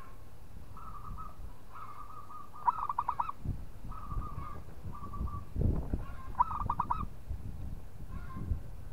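Zebra dove (perkutut) cooing: drawn-out coos broken twice by quick runs of rapid staccato notes. Some low rumbling bumps come in the middle.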